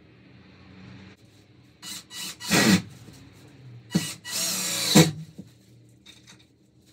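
Cordless drill-driver running into a wooden frame in two bursts: short stuttering pulses about two seconds in, then a longer run of about a second, ending near the five-second mark.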